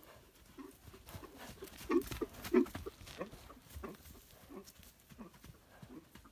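A stallion cantering around a grass-and-dirt pen: irregular hoofbeats thudding on the soft ground, loudest about two seconds in.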